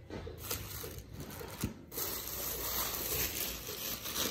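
Thin plastic shopping bags rustling and crinkling as they are handled and rummaged through, louder and denser from about two seconds in.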